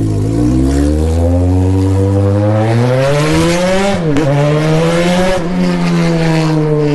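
Yamaha XJ6's inline-four engine through a muffler-less straight pipe, accelerating under way. The revs climb steadily for about four seconds, dip sharply at a gear change, climb again, then drop back about five seconds in and hold steady.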